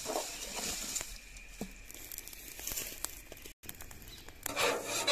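Dry sugarcane leaves rustling and crinkling as they are stuffed into the firebox of a mud furnace to light it. After a brief break, louder rough rubbing strokes start near the end.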